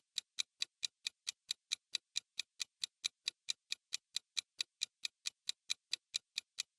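Clock-tick countdown timer sound effect: steady, evenly spaced sharp ticks, about four or five a second, marking the time left to answer a quiz question.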